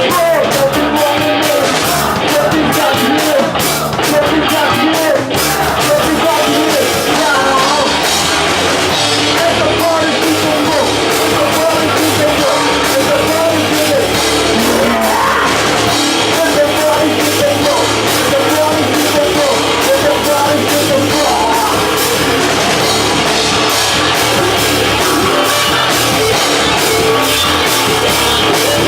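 Rock band playing a song: drum kit and electric guitars under a singing voice, loud and unbroken.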